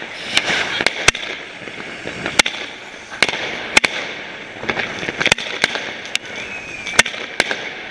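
Fireworks battery firing shots in irregular succession: about a dozen sharp bangs over a continuous crackling hiss.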